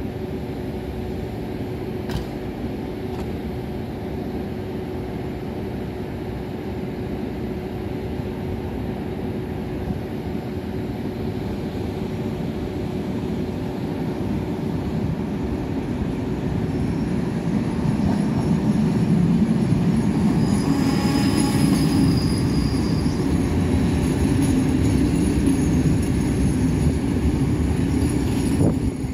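VR Sm3 Pendolino electric train arriving and running past close by, its rumble and wheel noise growing steadily louder as it nears. A brief high squeal comes about two-thirds of the way through.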